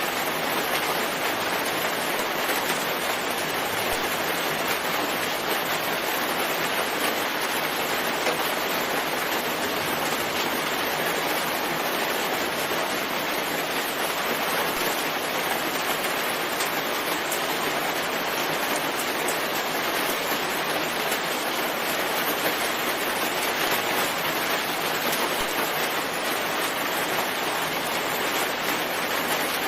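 Steady rain falling, an even hiss with no break in it.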